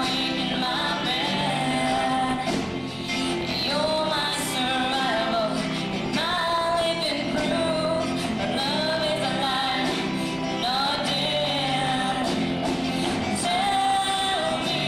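Music: a song with a singing voice carrying the melody over instrumental accompaniment.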